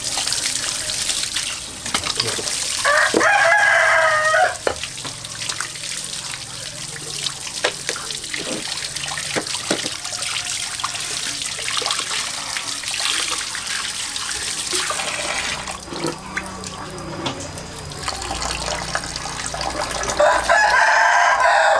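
A rooster crows twice, once about three seconds in and again near the end, each crow lasting about a second and a half. Between the crows there is a steady hiss of running water and a few light knocks.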